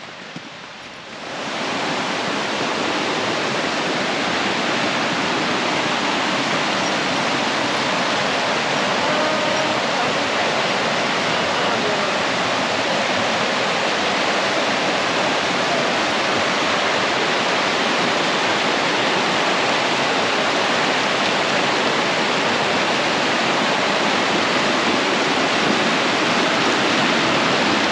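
Fast-flowing mountain creek rushing over rocks in whitewater rapids: a loud, steady rush of water that comes up sharply about a second and a half in.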